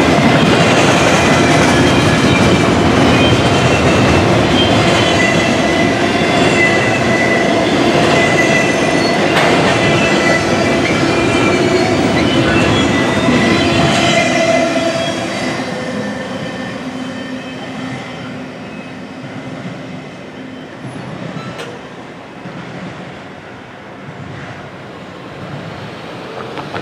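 Double-stack intermodal container cars rolling past close by: steady wheel-on-rail noise with high squealing tones from the wheels. About halfway through, the last car passes and the sound drops away and fades as the train recedes.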